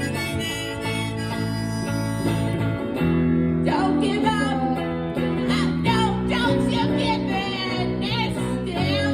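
Blues song played live: a harmonica over guitar, then a voice starts singing about three and a half seconds in, with the guitar going on underneath.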